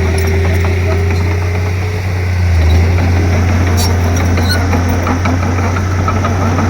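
Komatsu D31P bulldozer's diesel engine running steadily with a strong low hum, swelling briefly a little under three seconds in.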